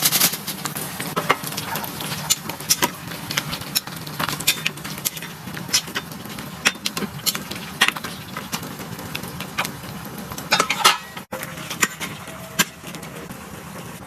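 Metal utensils clinking and scraping against a pan or dishes in irregular knocks, over a steady low hum, with a brief break about eleven seconds in.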